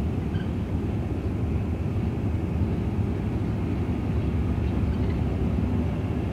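Empty covered hopper cars of a shoved freight train rolling by at slow speed: a steady rumble of steel wheels on rail.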